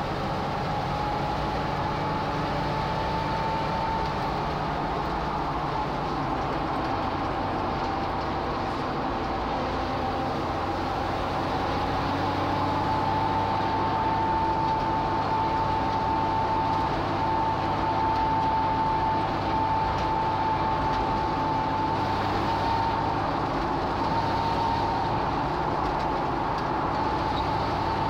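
Jeep TJ driving with a steady high whine from the rear axle, a Dana 35 with a Detroit locker and 4.56 gears, drifting slightly in pitch with road speed over the road and engine noise. It is the weird rear-end noise the owner is trying to track down.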